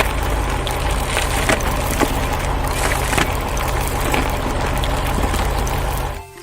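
Heavy construction-machine engine running with a steady low drone under a dense clatter of cracking and crunching, as of material being broken up. It cuts off abruptly near the end.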